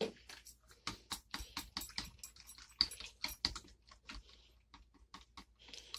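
Balloon whisk beating yogurt in a glass bowl: quick, irregular clicks and taps of the whisk wires against the glass, several a second.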